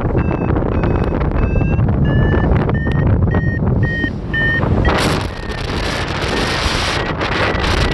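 Flight variometer beeping in short repeated tones, a few a second and creeping slightly up in pitch, the climb signal that the glider is rising in lift. Heavy wind rushes on the microphone throughout, with a louder hiss of wind coming in about five seconds in.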